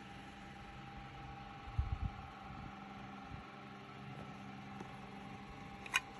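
Steady low electrical-sounding hum with a faint tone, a few low handling bumps about two seconds in, and one sharp plastic click near the end as a small clear plastic ring box is picked up.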